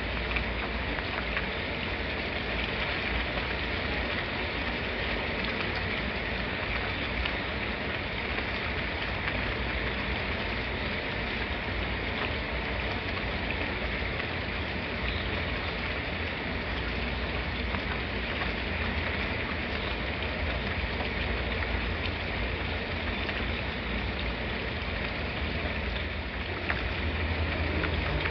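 Steady rain falling: an even hiss with scattered drop ticks and a low rumble underneath.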